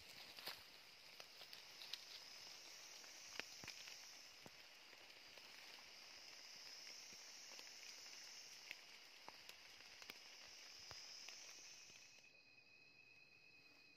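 Night forest insect chorus, a steady high buzzing that swells and fades in slow waves, with scattered faint clicks and rustles as a shot junglefowl is handled. About 12 s in the chorus gives way to a thinner, steady high-pitched trill.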